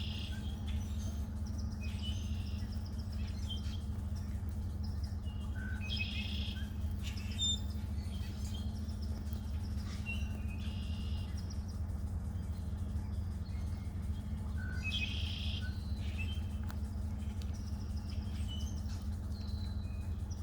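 Small songbirds singing, short high trilling phrases and chirps repeated every few seconds, over a steady low hum.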